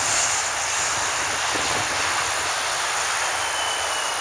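Airbus A330-300 jet engines running steady on final approach with the landing gear down, as the airliner comes in towards the listener. A thin high whine rises out of the noise near the end and slides slightly down in pitch.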